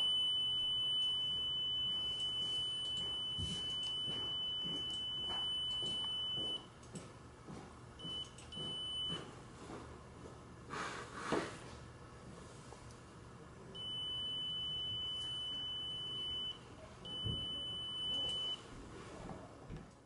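Theralase single laser probe's acupoint-locator beep: a steady high-pitched tone that sounds while the probe tip rests on an acupuncture point, showing the point has been found. It holds for about six seconds, cuts out, blips briefly, then sounds again in two shorter stretches. Soft handling clicks and one louder bump come about halfway through.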